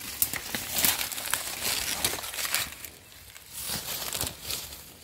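Dry leaf litter crackling and rustling as it is disturbed by hand and a small digging tool around wild mushrooms. The crackles are dense for about three seconds, then thin out.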